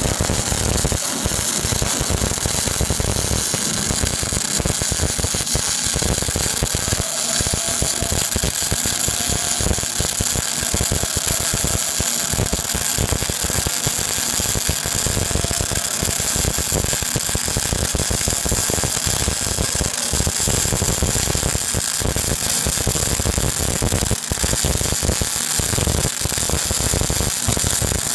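MAG welding arc running on a carbon steel butt weld: a steady, continuous crackle with no breaks.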